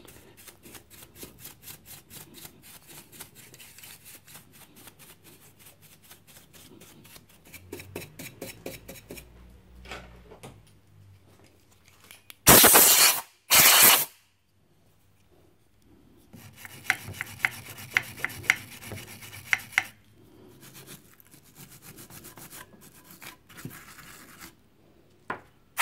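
A paintbrush scrubbing solvent over a valve radio's metal chassis in rapid short strokes. About halfway there are two short, loud blasts of compressed air from an air gun, then the brushing starts again.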